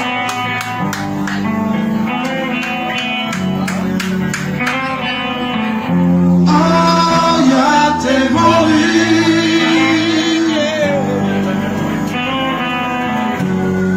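Live band playing a slow blues, an electric guitar leading over bass and drums.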